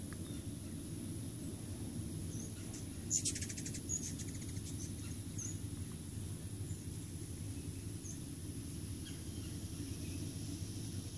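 Short, high bird chirps scattered through, with a rapid chattering trill about three seconds in. Under them runs a steady high-pitched insect drone and a low steady rumble.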